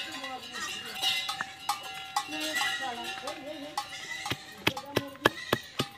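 Round hand stone knocking and pressing on a flat stone grinding slab (sil-batta) as garlic cloves and dried red chillies are crushed: a quick run of sharp knocks over the last two seconds. Before that, pitched calls and a ringing tone are heard.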